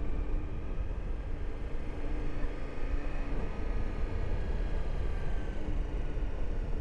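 Motorcycle riding along at a steady pace: the engine running faintly under a heavy, steady low rumble of wind noise.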